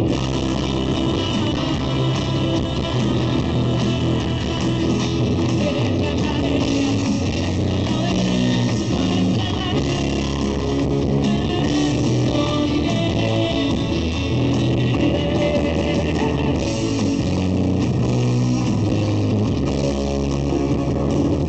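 Live band music played at steady volume: keyboards, electric bass and acoustic guitar.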